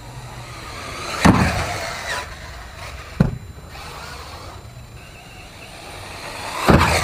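Arrma Typhon RC buggy with a 2150kv brushless motor on 4S, its motor whine building as it speeds up, then a loud hit about a second in as it strikes the ramp. The whine falls away as the wheels spin down in the air, a sharp landing smack follows about three seconds in, and near the end it speeds up again to another loud hit.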